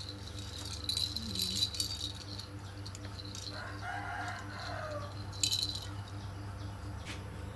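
Plastic baby rattle toy, bells in its cage balls jingling as it is shaken and knocked about, in bursts about a second in and again past halfway, over a low steady hum. A brief call sounds midway.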